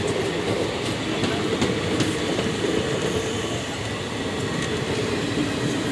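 Indian Railways passenger coaches rolling past, a steady rumble of wheels on rail with scattered clicks as they pass over rail joints.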